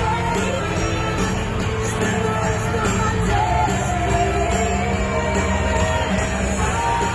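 Loud music with a heavy bass line and a singing voice, with a crowd shouting and whooping over it.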